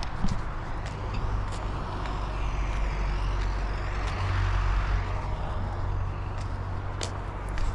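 Road traffic: a steady low rumble, with a vehicle swelling past about four to five seconds in.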